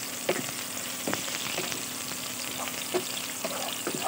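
Chopped garlic, onion and ginger sizzling in hot oil in a frying pan, stirred with a wooden spatula that clicks and knocks against the pan a few times.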